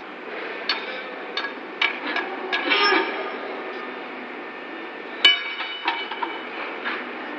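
Steel-on-steel clanks and knocks from rails and lifting gear in a ship's hold, about six sharp hits spread through, the loudest about five seconds in. Some hits leave a short metallic ring.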